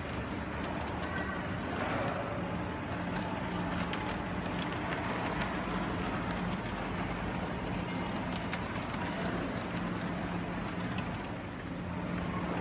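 LGB Stainz model steam locomotive running along the garden-railway track with a log wagon: a steady low electric-motor hum and wheel noise over constant background noise.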